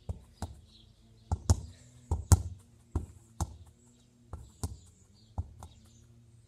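A football kicked repeatedly against a brick wall: a dozen or so sharp thuds, mostly in pairs about a second apart, as the foot strikes the ball and the ball smacks off the wall and back.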